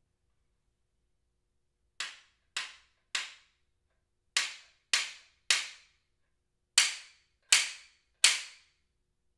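JKP slapstick (percussion whip) cracked nine times, starting about two seconds in. The cracks come in three groups of three, each group louder than the last, and each is a sharp snap with a short ring-off.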